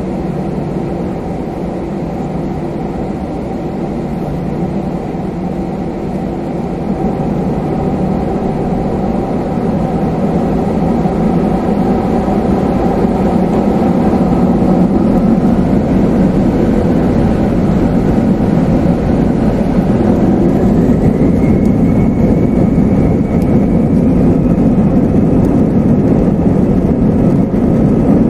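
Airbus A320-214's CFM56 jet engines heard from inside the cabin, spooling up to takeoff thrust at the start of the takeoff roll. A steady engine drone grows louder from about a quarter of the way in, and a higher whine climbs in pitch past the halfway point.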